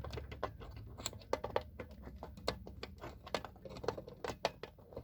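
Irregular clicking, tapping and scraping of plastic as a battery is worked into the finicky battery holder of a Dicon 200 smoke detector.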